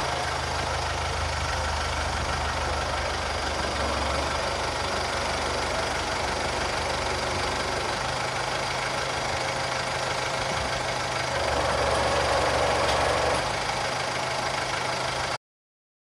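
An engine idling steadily under a steady hiss, a little louder about three-quarters of the way through, then cutting off suddenly.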